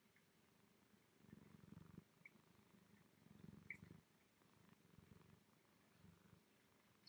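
Domestic cat purring faintly, the purr swelling and fading every second or two.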